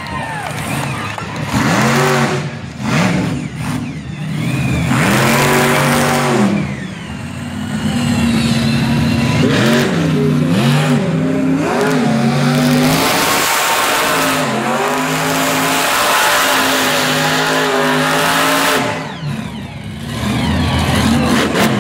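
Monster truck engine revving hard over and over, its pitch climbing and falling with each burst of throttle.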